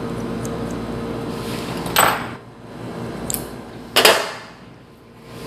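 Two sharp knocks of small hard objects, such as tools or a magnet, being set down or tapped on a tabletop, about two seconds apart, with a light click between them. A steady hum runs under the first two seconds.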